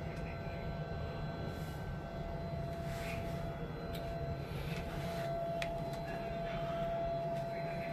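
Steady low mechanical hum with a thin steady tone running through it, and a couple of faint clicks around the middle.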